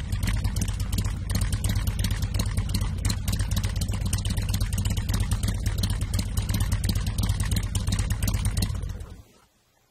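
Harley-Davidson touring motorcycle's V-twin idling through Drag Specialties 4-inch slip-on mufflers, a steady, deep sound. About nine seconds in the engine stops and the sound cuts out.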